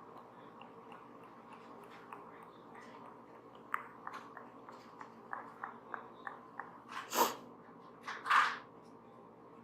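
Faint brushing on a microphone with a run of light clicks from the bristles, then two loud sniffles near the end.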